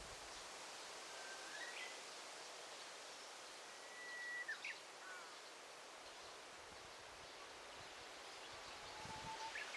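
Forest ambience: a faint steady hiss of outdoor background noise with a few scattered bird calls. The loudest is a long level whistle about four seconds in, ending in quick sweeping notes.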